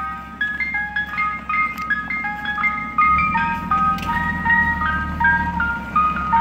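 Ice cream truck's jingle playing loud through its loudspeaker, a simple tune of single notes stepping up and down. Under it is the low rumble of the truck's engine, which grows louder about three seconds in as the truck pulls up.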